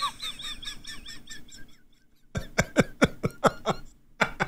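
Wheezing, high-pitched laughter: runs of short squeaky gasps, a brief pause about two seconds in, then about half a dozen sharp breathy squeaks in quick succession. It is laughter hard enough to leave him short of breath.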